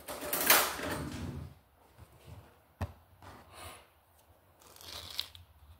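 Hands handling food on a kitchen board: a rustling for about a second and a half, then a single sharp click nearly three seconds in and softer handling sounds after it.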